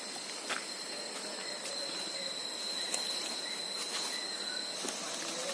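Forest insects chirring: a steady, high-pitched, unbroken drone, with a few faint clicks over it.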